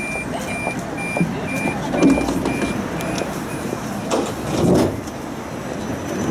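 Siemens Combino tram's door-closing warning beeps, short high beeps about two a second that stop about three seconds in, over passenger chatter, with a knock about two seconds in.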